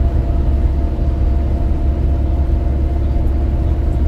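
Car interior while driving: a steady low rumble of engine and tyre noise.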